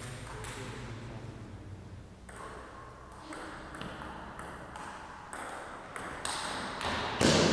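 Table tennis rally: the ball clicking off the paddles and the table, about one hit every half second to second. A louder burst of noise comes near the end.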